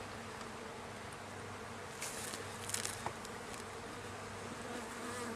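Honeybees buzzing steadily at the hive, with a few brief handling scuffs about two to three seconds in.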